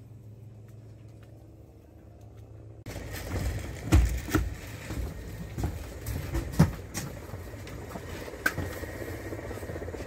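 A low steady hum, then about three seconds in a sudden change to louder rumbling noise with several heavy thumps and knocks: a person's footsteps as he climbs into and walks through the empty cabin of a small aircraft.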